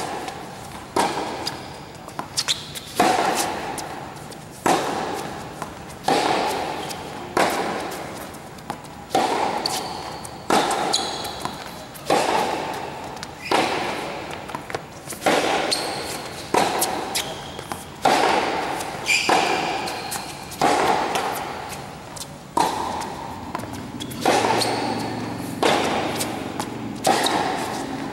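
Tennis rally: a tennis ball struck by racquets in a steady exchange of groundstrokes, a hit about every second and a half, each one echoing under the court's roof.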